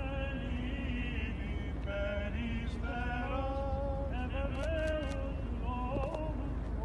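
Male clergy chanting an Orthodox Byzantine hymn in long held, wavering notes that change pitch slowly, over a steady low rumble.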